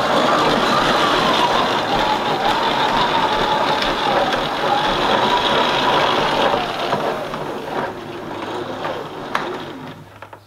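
Auto-retracting hose reel of a wall-mounted electric pressure washer winding in its 100-foot hose: a steady mechanical whir that dies away about seven seconds in, with a sharp click near the end.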